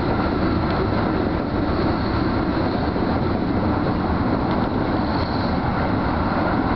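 Keio Line electric commuter train running at speed, heard from inside the front car: a steady noise of wheels on rails and running gear.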